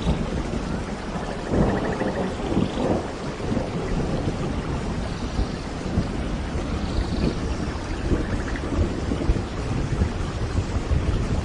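Steady rain with low, rolling thunder.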